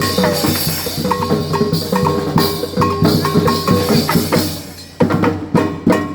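Live drumming in a fast, steady rhythm with pitched tones in the music. It fades out about four and a half seconds in, then starts again with sharp, loud strikes.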